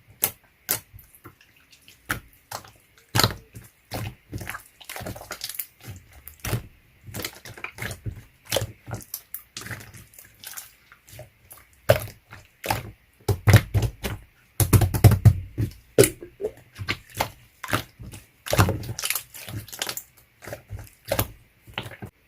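Slime being squeezed and poked by hand: a fast, irregular run of wet clicks and pops, thickest and loudest about two-thirds of the way through.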